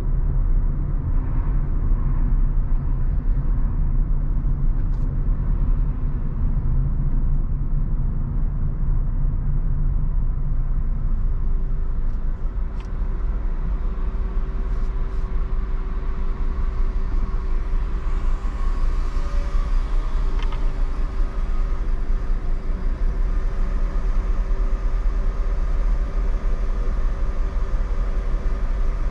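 A car driving through city streets: a steady low rumble of engine and road noise. A steady hum comes in about a third of the way through and holds on.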